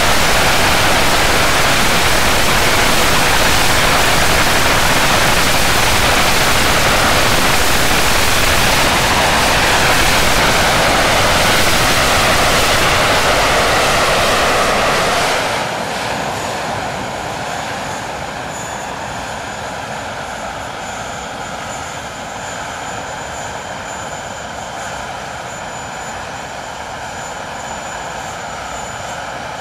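English Electric Lightning's Rolls-Royce Avon turbojets running on the ground at high power with a dense, loud roar. About halfway through the roar drops back sharply as the engine is throttled down, leaving a lower rush with a steady turbine whine.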